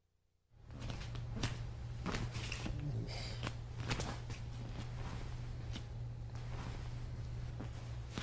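Room tone of a small gym: a steady low hum, starting about half a second in, with scattered faint clicks and rustles.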